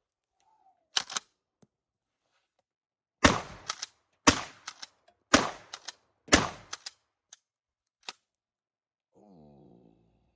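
12-gauge Stevens 320 pump-action shotgun: a double clack of the pump being racked about a second in, then four shots about a second apart, each followed by the clack-clack of the pump cycling the next shell. Two faint clicks follow the last shot.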